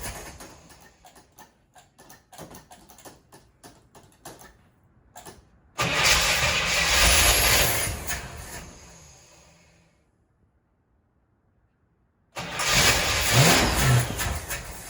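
Car engine being cranked by its starter twice, each attempt starting suddenly, running about three seconds and fading away without the engine catching. It turns over but won't start despite spark at the coil and plug 1, which the owner puts down to fuel that seems to run out while cranking.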